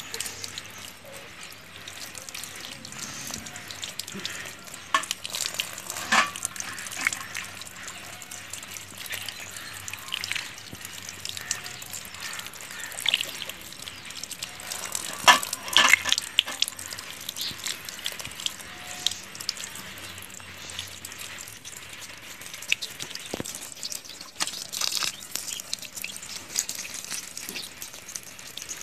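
Water poured in a thin stream over hands that rub and rinse cow dung and ash off eggs roasted in dung, splashing onto the ground, with a few louder spatters, the strongest about fifteen seconds in.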